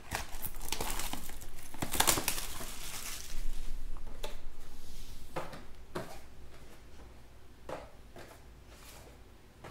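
Cardboard Panini Chronicles Baseball card boxes being handled: lifted off a stack and set down on the table with rustling and scraping for the first three or four seconds, then a few scattered light taps.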